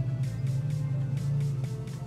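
Background music with a steady beat over a low bass line.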